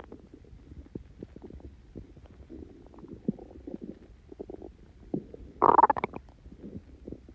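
Human stomach gurgling and growling, bloated with gas from drinking Coke and Mentos: a run of small squelches and pops, with one louder gurgle lasting about half a second about three quarters of the way in.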